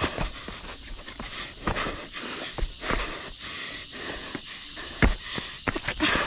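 Heavy panting breaths from hard exertion, with repeated short scuffs and scrapes of shoes on steep bare rock; one louder scrape comes about five seconds in.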